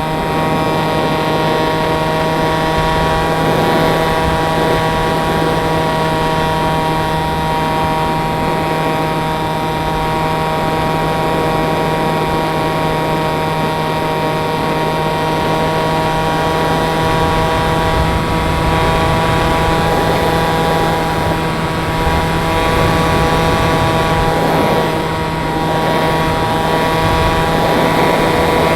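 RC glider's pusher motor and propeller running at a steady throttle, a held whine with its overtones over a rush of wind noise; the pitch lifts slightly near the end.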